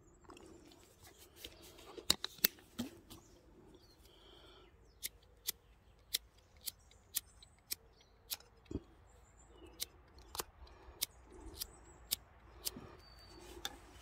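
A small handheld lighter clicked over and over, about two clicks a second, to light the fuel in a folding pocket stove; the fuel has caught by the end.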